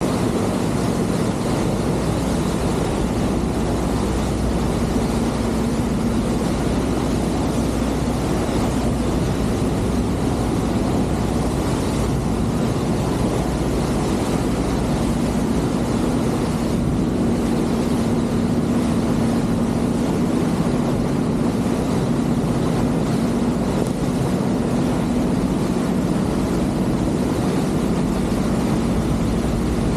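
High-speed passenger ferry under way at speed: a steady engine drone under the rush of water churned up along the hull and wake, with wind on the microphone.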